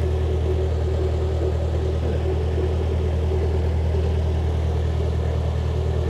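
A narrowboat's engine running steadily while under way, a deep, even hum heard from the stern beside the tiller.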